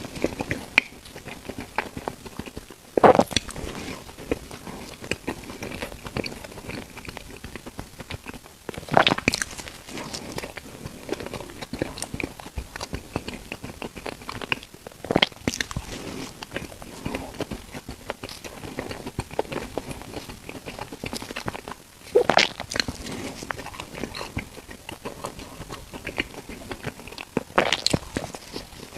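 Close-up eating sounds of bread: five loud bites, about six seconds apart, with steady wet chewing in between.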